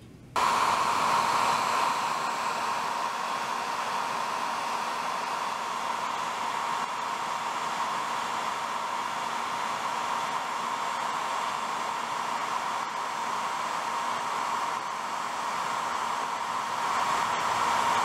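Handheld hair dryer switched on just after the start and running steadily: a constant rush of blown air with a faint whine, drying wet white glue under model railroad track.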